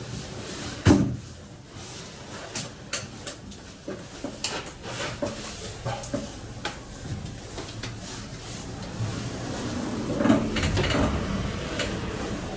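Knocks, clicks and taps of hands working at aluminium-framed wall panels: one sharp knock about a second in, scattered light clicks after, and a louder, longer stretch of handling noise about ten seconds in.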